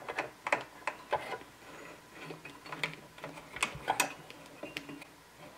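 Light, irregular clicks and taps of an Allen key on the blade bolt of a DeWalt 20-volt cordless circular saw. The key is being worked to loosen the bolt while the spindle lock is held down.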